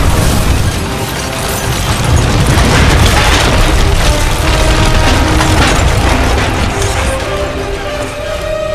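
A long, loud explosion and fire rumble, heavy in the bass, swelling again about three seconds in and dying away near the end, with a dramatic music score playing throughout.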